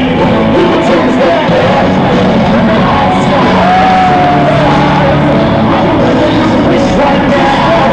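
Live concert music played loud through a stadium PA, with a sung vocal line over the band, recorded from among the audience. A long held sung note comes about halfway through.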